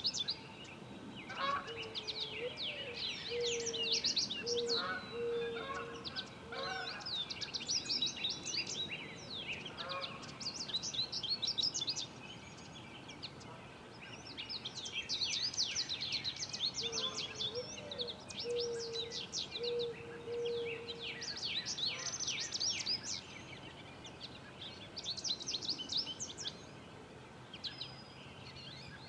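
Wild birds chirping and twittering in quick bursts throughout. Twice, a couple of seconds in and again past the middle, a low call of a short rising note followed by four or five held notes.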